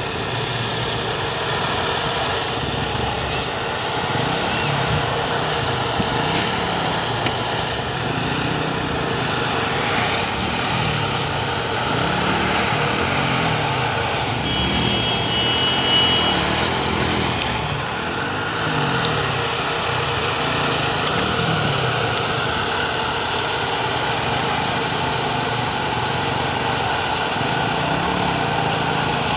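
Railway ballast tamping machine's engine running, its low pitch rising and falling over and over, about once a second.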